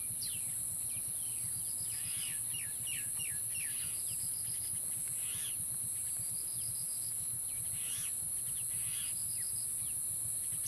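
Steady high-pitched insect drone with birds calling over it in short, falling chirps, several in a quick series about two to four seconds in.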